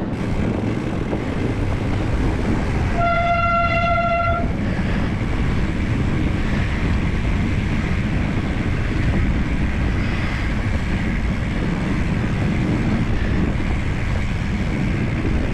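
Wind buffeting the microphone as a steady low rumble. About three seconds in, a single steady horn-like tone sounds for about a second and a half, then stops.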